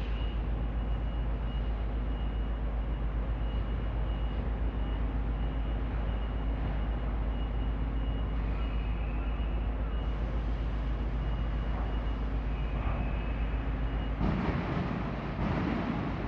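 Steady low rumble of large idling diesel machinery, with a faint steady high whine over it. About two seconds before the end a louder rush of noise comes in.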